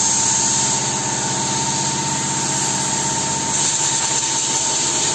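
Steady motor hum with a constant high whine and hiss running evenly throughout.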